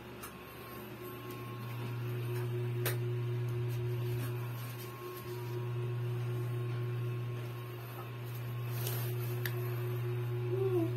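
Steady low electrical hum with a thinner, higher steady tone above it, dipping slightly now and then.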